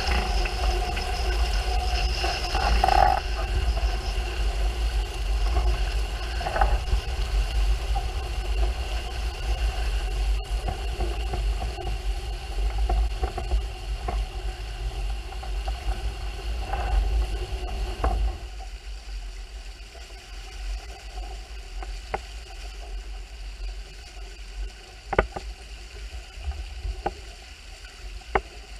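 Wind buffeting the camera microphone and water rushing past the hulls of a Hurricane 5.9 Sport catamaran sailing at speed, with steady tones running underneath. About two-thirds of the way through the rush drops away sharply as the boat slows, leaving quieter water noise and a few sharp knocks.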